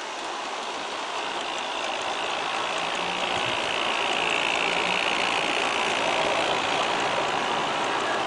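G-scale model train running on outdoor track: five Aristo-Craft ALCO diesel model locomotives' motors and gears whining and metal wheels rolling on rail as they pull a long train of cars. It grows louder over the first few seconds as the train draws nearer.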